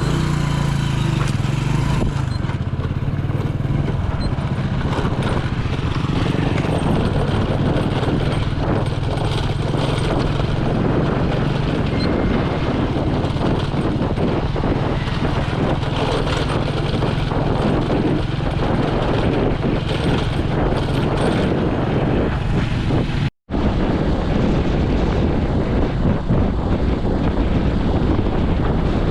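Vehicle engine running steadily while on the move, with wind and road noise throughout. The sound cuts out for an instant about 23 seconds in, and after that the engine hum is buried under wind and road noise.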